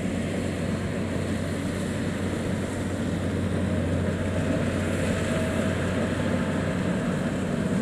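Diesel engine of a Kubota DC70 rice combine harvester running steadily under load as it harvests through soft, sticky mud: a continuous low drone.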